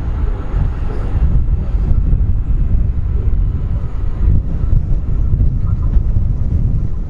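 Train running by: a loud, low, continuous rumble with a faint whine above it.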